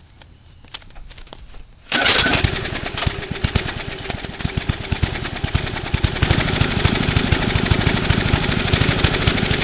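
Small single-cylinder lawn mower engine, converted to run on propane, starting suddenly about two seconds in and running steadily with rapid, even firing. It is set at idle on a slight flow of propane.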